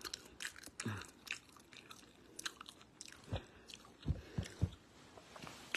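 Chewing close to a phone's microphone: an irregular run of small wet clicks and smacks, with a few soft low knocks about halfway through.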